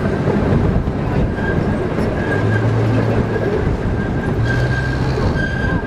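Miniature zoo train running, heard from its open passenger car: a steady rumble, with a thin high squeal from the wheels on the curve that grows stronger past the middle.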